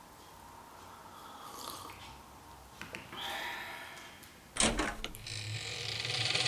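Faint scuffs and rustles, then a single sharp knock about two-thirds in, followed by a rasping, grating noise that lasts about two seconds over a low hum.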